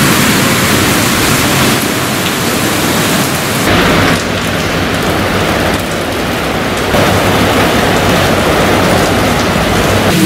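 Heavy rain falling, a steady loud hiss that steps up and down in level a few times.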